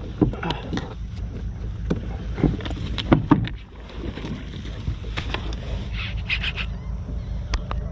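Gear being handled in a plastic fishing kayak as a landing net is grabbed: several sharp knocks and clicks against the hull in the first few seconds, then quieter rustling, over a steady low rumble.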